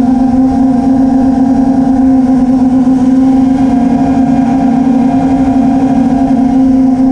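FPV quadcopter's four GepRC 2306 2450kv brushless motors and propellers running at a steady throttle: a loud, continuous whine that holds one pitch.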